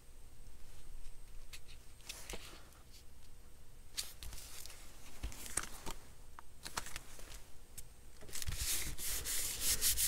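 Paper rustling and light taps as sheets of patterned paper are handled, then, about eight seconds in, a hand rubbing rapidly back and forth over the layered paper to press it flat.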